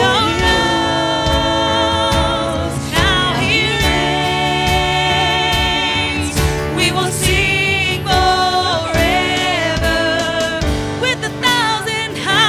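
Live worship band: several voices singing long, held notes with vibrato, over keyboard, bass and electric guitar.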